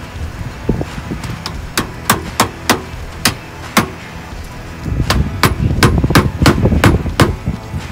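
Hammer striking copper drip edge to bend its corners over: a series of sharp metallic taps, about three a second. The taps pause briefly about halfway through, then come in a denser run to the end.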